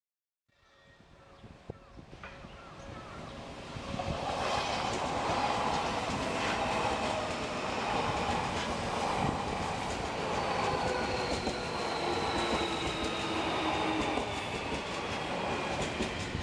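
Odakyu Line electric train passing over a level crossing: wheels clattering over the rail joints, with steady whining tones, one of which slowly falls in pitch. The sound begins about half a second in and builds over the next few seconds as the train comes close, then holds.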